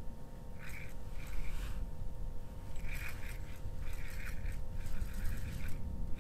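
Wind rumbling on the microphone, with soft scraping noises coming every second or so from a small ice-fishing spinning reel being cranked as a fish pulls on the line.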